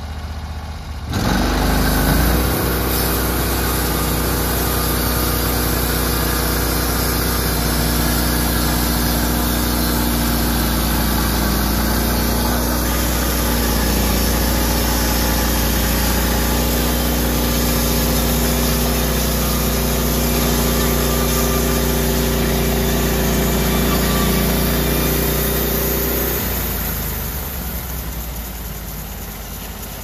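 Norwood HD38 portable bandsaw mill's engine throttling up about a second in, then running steadily under load while the band blade saws along a maple log. Near the end it throttles back down to idle.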